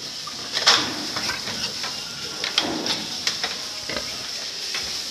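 Pigs in a farrowing pen grunting now and then, with scattered sharp clicks and knocks over a steady high hiss.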